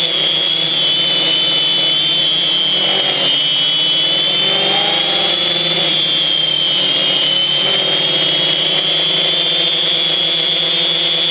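FPV quadcopter's electric motors and propellers, heard from a GoPro mounted on the copter: a loud, steady high whine that wavers slightly in pitch as the copter flies.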